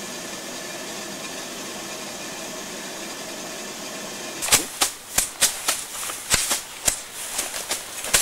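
Gas camping stove burner hissing steadily under a kettle; about halfway through this gives way to loud, sharp, irregular strikes, roughly two or three a second, of hand tools cutting through long grass.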